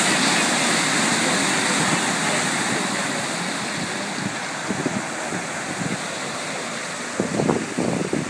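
Floodwater rushing and surging over a low wall into a flooded street: a loud, steady rush of water that eases slightly over the seconds, with irregular low bumps near the end.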